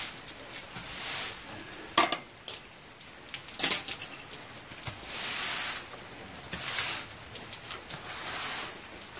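Push broom sweeping a concrete garage floor: several swishing, scraping strokes of the bristles, each under a second, with two sharp knocks between them, about two seconds and nearly four seconds in.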